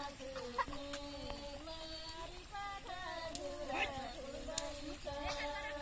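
A woman's voice singing a slow Nepali asare folk melody, the paddy-planting song, in long held notes that step from pitch to pitch, with a few faint clicks.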